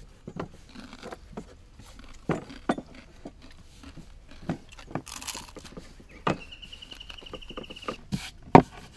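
Wooden rolling pins tapping and knocking against wooden rolling boards as thin dough wrappers are rolled out, in scattered light knocks with a few louder ones near the end. About six seconds in, a high trilling tone sounds for about a second and a half.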